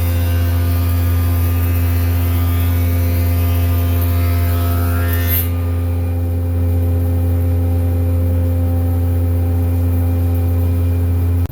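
Thickness planer running, cutting an oak board fed through on edge. About halfway through the cutting noise drops away as the board clears the cutterhead, leaving the planer's steady hum.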